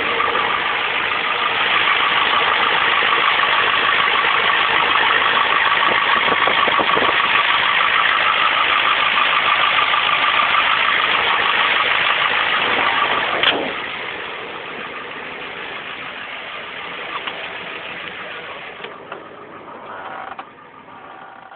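Ford 7.3 IDI non-turbo V8 diesel idling with a steady rhythmic weird noise over the engine clatter, which the owner suspects comes from the injection pump, injectors, a lifter or a valve. About two-thirds of the way through there is a sharp click, and after it the sound is quieter.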